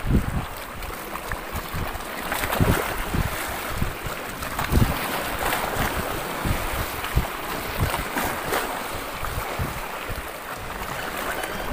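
Small choppy waves lapping and splashing at the water's edge, with gusts of wind buffeting the microphone.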